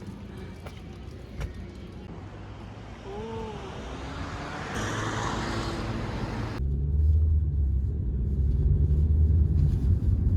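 Road vehicle noise: a steady rumble of engine and tyres that grows louder, turning into a heavy low rumble over the last few seconds.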